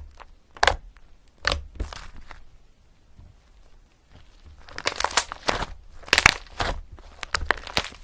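Rustling and crinkling handling noises close to the microphone, in irregular bursts. Sparse and soft in the first half, then busy and louder in the second half.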